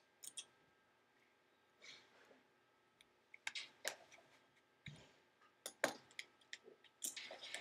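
Faint, scattered clicks and taps of a small screwdriver and screws against a MacBook Pro's aluminium top case as the screws are driven back in. The clicks come more often in the second half.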